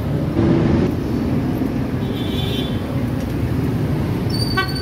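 Steady road traffic noise from passing cars and motorcycles on a busy street, with a brief high-pitched tone near the end.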